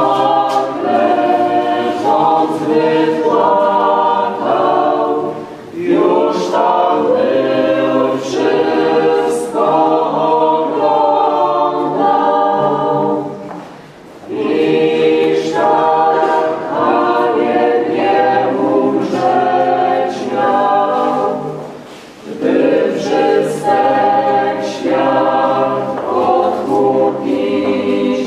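Small mixed choir of women's and men's voices singing together, in long phrases broken by short pauses about every eight seconds.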